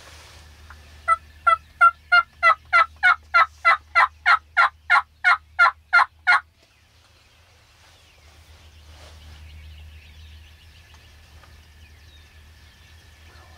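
A series of about fourteen hen turkey yelps, evenly paced at nearly three a second and growing louder over the first few, sounded close by on a turkey call.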